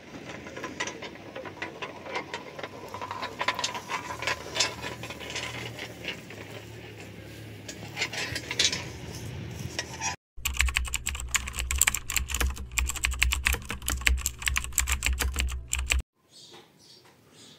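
About ten seconds of hazy outdoor ambience with scattered clicks, then a channel logo sting: a dense run of rapid clicking over a strong low hum for about six seconds, which cuts off suddenly into quiet room tone.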